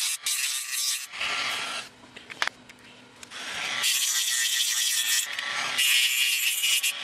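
Dremel rotary tool's grinding stone grinding down a small fibreglass circuit board to expose its inner copper layers. The gritty, hissing grind drops away for about a second and a half in the middle, with a single click, then picks up again.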